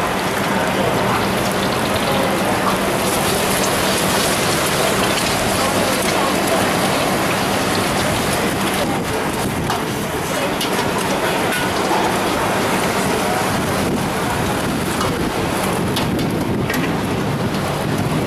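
Eggs frying in hot oil in a wok over a gas burner: a steady, dense sizzle, with a few sharper clicks along the way.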